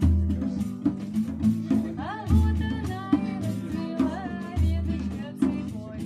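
Acoustic guitar music with a drum keeping a steady beat and a voice singing, the voice sliding up in pitch about two seconds in.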